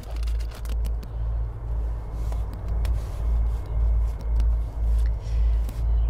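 A steady low outdoor rumble, pulsing unevenly about twice a second, with faint soft rubbing of a wet wipe being worked over a door and its brass deadbolt.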